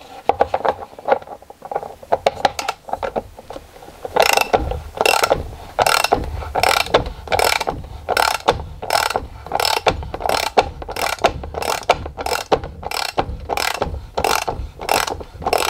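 Socket ratchet wrench clicking in regular strokes as it turns the draw bolt of a Q-Max knockout punch, cutting a hole through the plastic turbine housing wall. The clicks come about once or twice a second and speed up toward the end.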